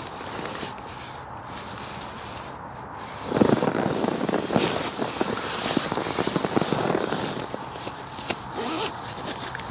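Nylon bivvy bag and sleeping bag rustling and crinkling as the person inside shifts about and sits up, getting louder and busier from about three seconds in.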